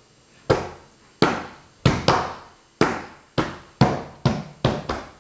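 Hands slapping flat on a tabletop in turn, about ten sharp slaps at an uneven pace, some coming in quick pairs.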